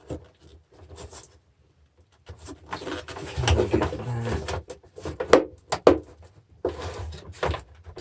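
Parts of a car battery charger being handled and pulled apart on a workbench: scraping and knocking of the casing, with two sharp clicks about five and six seconds in.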